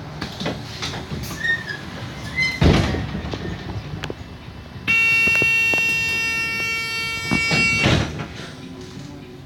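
A bus door warning tone sounds steadily for about three seconds, high-pitched and slowly fading, as the sliding doors close, and ends with thuds from the doors shutting. A single loud knock comes a couple of seconds earlier, over the low hum of the bus.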